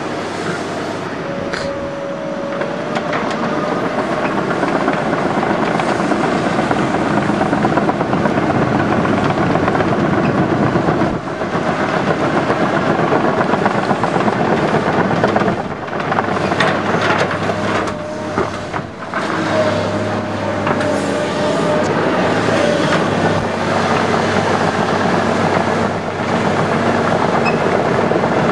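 Tracked hydraulic excavators working: steady diesel engine and hydraulic running with a constant mechanical rattle, easing briefly a few times.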